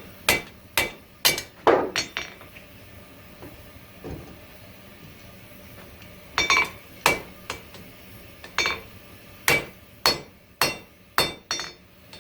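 Hand hammer striking hot coil-spring steel on an anvil to flatten the bar, each blow ringing. A quick run of blows, a pause of about four seconds, then another run of blows.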